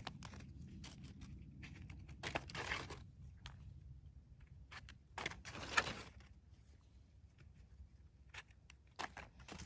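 Scattered rustling and scraping with light clicks, a few louder handling noises about two and a half, five to six and nine seconds in: hands picking wild mushrooms and handling them.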